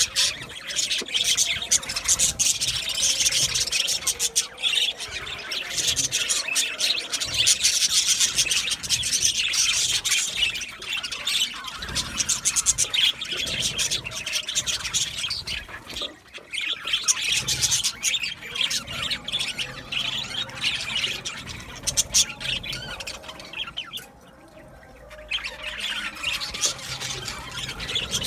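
A flock of budgerigars chirping, chattering and squawking together in an aviary, a dense continuous twitter that drops away briefly about two-thirds of the way through and again near the end before picking up.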